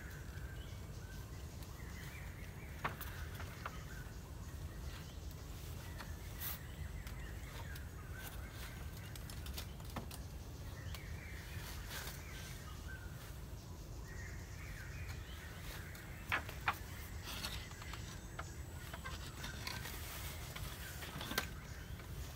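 Intermittent scratchy rustling with a few sharp clicks or knocks, over a steady low rumble.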